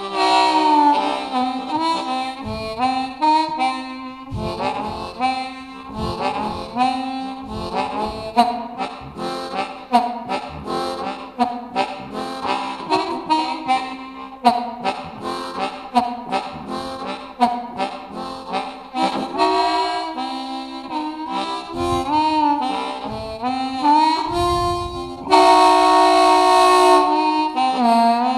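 Low F diatonic harmonica playing a steam-train imitation: quick rhythmic notes with bent pitches, ending in a long held chord over the last few seconds.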